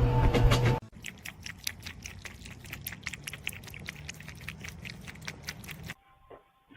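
A pet animal chewing: a quick run of small crunches, several a second, that starts about a second in and stops abruptly near the end.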